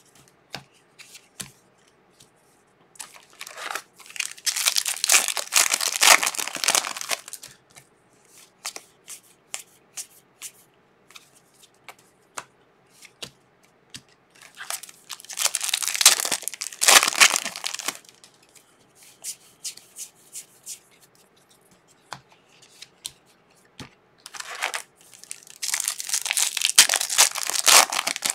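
Foil wrappers of trading-card packs being torn open and crinkled, in three long bouts. Light clicks of cards being handled fall between them.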